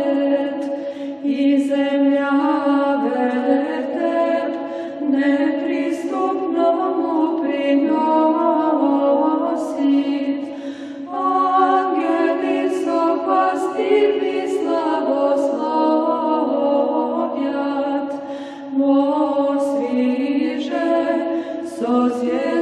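A cappella choir singing an Orthodox church chant in slow, held notes, several voices together in harmony.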